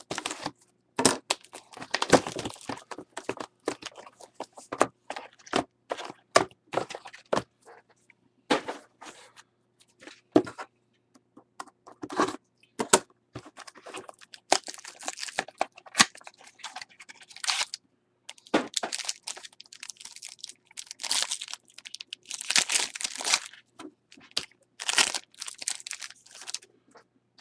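A cardboard trading-card box being opened and foil card packs handled and torn: short bursts of crinkling and tearing with scattered clicks and taps, thickest in the second half.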